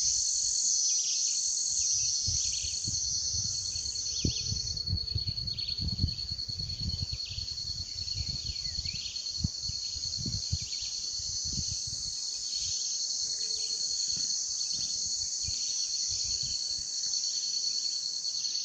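Chorus of insects such as crickets: a steady high trill with a denser buzz above it, which pulses at first and evens out about five seconds in. Many short, falling chirps sound underneath, and bouts of low rumble come and go in the first half.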